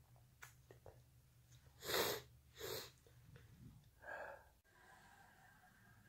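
A person sneezing: two quick, breathy bursts less than a second apart about two seconds in, the first the louder, then a shorter, softer sound about four seconds in.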